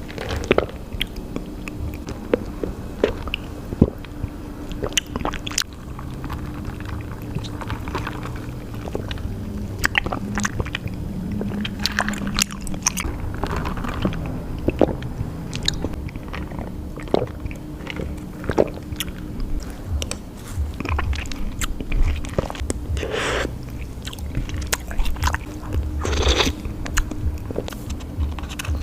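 Close-miked chewing and biting of boba tea's tapioca pearls, with many small sharp, wet clicks through the stretch. There are two longer, breathy sounds near the end.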